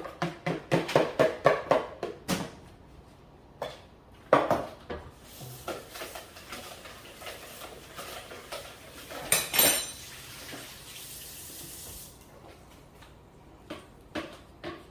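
Bowls and dishes clattering and knocking as kitchenware is moved about, then a kitchen tap running into the sink for several seconds, with another knock partway through.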